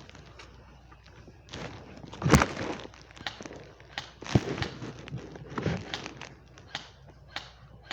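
Footsteps and rustling of clothing and gear, with scattered clicks and a couple of sharp knocks, the loudest about two seconds in.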